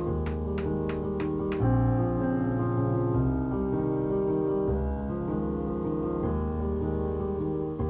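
Instrumental background music of sustained, changing chords. An even ticking beat of about three clicks a second runs through the first second and a half, then stops.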